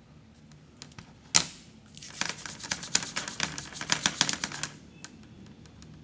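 Rapid, irregular clicking and rustling from hands working a thin headset cable close to the microphone, with one sharp click about a second and a half in.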